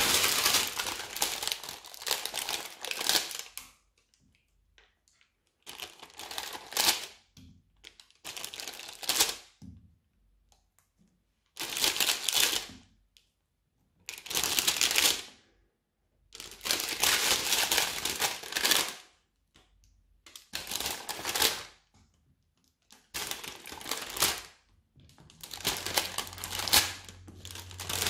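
Repeated bursts of crinkling and crackling, each lasting one to three seconds with silent gaps between, as hands handle modelling-clay strips in their clear plastic pack and press them onto slime.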